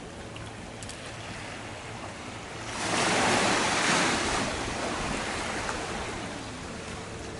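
Small sea waves lapping on a pebble-and-sand beach, one wave swelling and breaking about three seconds in, then fading slowly.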